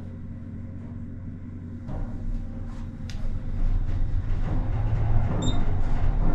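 Elevator running: a low mechanical hum and rumble that grows louder about two seconds in, with a short high beep about five and a half seconds in.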